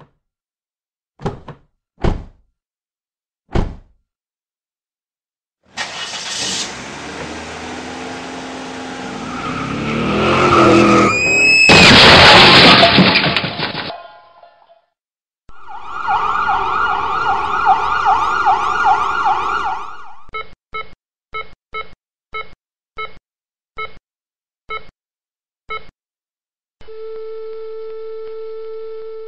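Sound-effect sequence of a car crash: a car accelerates, then a loud screech and crash. A siren follows, then a hospital heart monitor beeps at an ever slower rate and ends in a steady flatline tone, the sign of the heart stopping.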